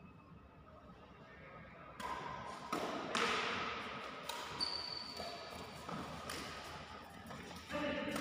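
Badminton rally starting about two seconds in: rackets hitting the shuttlecock roughly once a second, with players' footsteps and a brief high sneaker squeak on the court, echoing in a large sports hall.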